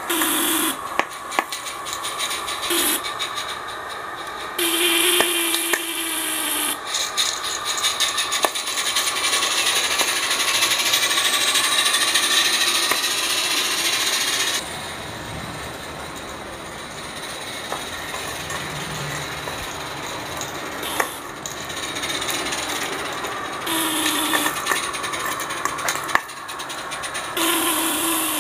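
Accucraft Ruby G-scale live steam locomotive working slowly while switching cars: a continuous steam hiss with rapid exhaust chuffs and clicks of wheels on rail, louder for a stretch near the middle and then easing off.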